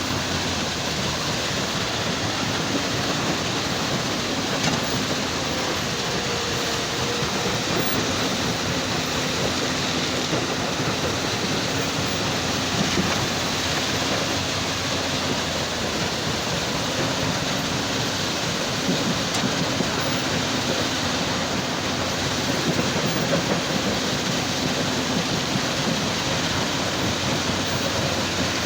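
Heavy machinery running at a stone-crushing site, an excavator and stone crusher: a steady, even rushing noise with a faint engine hum underneath.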